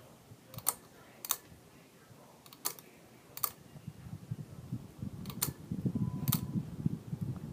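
Six sharp clicks, then from about halfway a ceiling fan starting up with a low, uneven rumble that grows louder.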